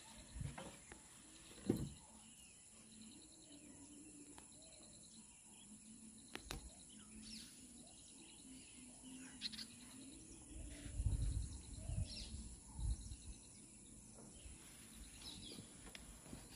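Faint outdoor ambience: a steady high insect drone with birds chirping now and then, and a few dull low thumps, a cluster of them a little past the middle.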